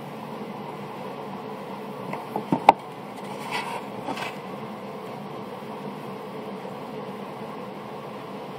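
Table-mounted router with a bead-profile bit running steadily, with a few sharp knocks about two and a half seconds in and a short hiss a second later.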